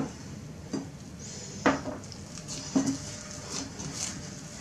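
A hand squishing and kneading sticky, milk-wet yeast dough in a glass bowl, with a few sharp knocks of the hand against the glass.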